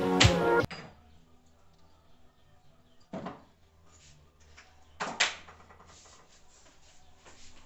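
Background music cuts off within the first second, then faint handling sounds as objects are set down and moved on a wooden dresser top, with two short knocks about 3 and 5 seconds in and a few light clicks.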